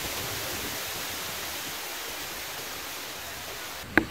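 Steady, even hiss of background noise, with no distinct events, that stops with a single click near the end.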